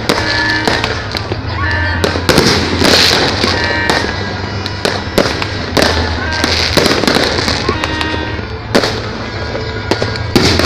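Aerial fireworks going off in quick succession: sharp bangs about once a second, with continuous crackling between them.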